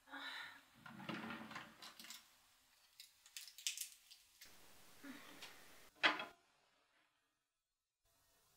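Hands opening a bedside drawer and rummaging in it, with rustling and small clicks as a medicine packet is handled, and one sharper click about six seconds in.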